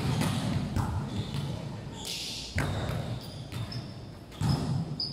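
A volleyball being played, hit sharply about four times, each slap echoing through a large indoor sports hall.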